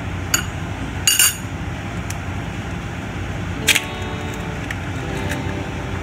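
A metal fork tapping and cracking an eggshell, giving sharp clicks and clinks: one early tap, a short rattling clatter about a second in, and another sharp clack near four seconds. A steady low hum runs underneath.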